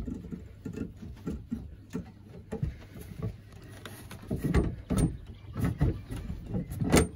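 Adjustable spanners clicking and knocking on a pipe compression fitting as it is done up. The taps come irregularly, get louder and closer together about halfway through, with a sharp knock near the end.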